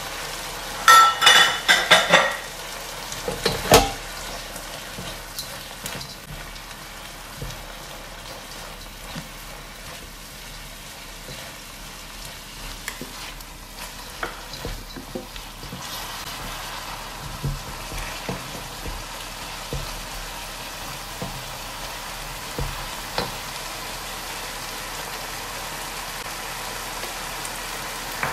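Shredded carrot and chopped vegetables sizzling in a steel wok as they are stir-fried with a spatula, with small scrapes as they are turned. About a second in there is a short run of ringing metallic clanks, and a single sharp knock follows soon after.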